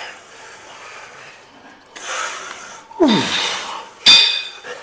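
A lifter breathing hard under a loaded Smith machine bar during an incline bench press: a sharp breath about two seconds in, a short falling grunt about a second later, then a loud ringing metal clank from the Smith machine bar and its weight plates just after four seconds.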